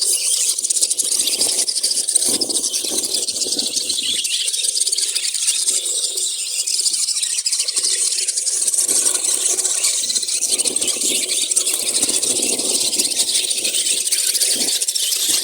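A flock of small caged birds chirping and screeching together in a dense, continuous high-pitched chatter, with a faint low background murmur underneath.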